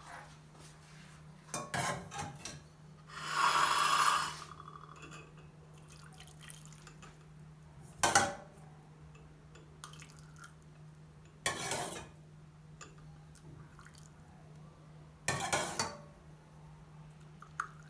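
Kahwa poured from a pan into a cup: a short pour about three seconds in, between clinks and knocks of the pan and cup at irregular intervals. A low steady hum sits underneath.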